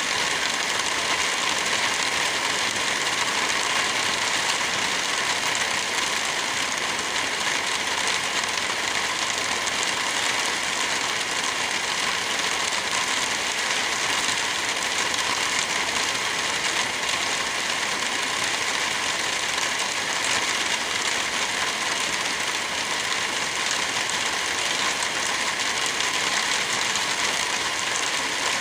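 Wind blowing through forest trees with light rain falling, a steady, even rushing hiss.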